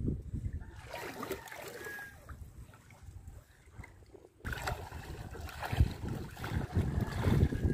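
Shallow sea water sloshing and splashing around legs as people wade through it, with wind rumbling on the microphone; louder from a sudden break about four and a half seconds in.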